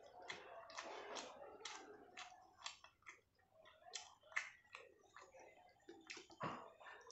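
Chewing a mouthful of food, heard as irregular wet mouth clicks and smacks.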